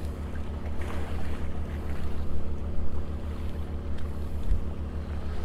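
Wind buffeting the microphone over a steady low motor hum.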